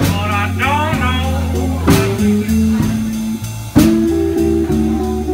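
Live blues band of two electric guitars and a drum kit playing, with a bending, wavering high line in the first second and sharp drum-and-cymbal hits about two and four seconds in.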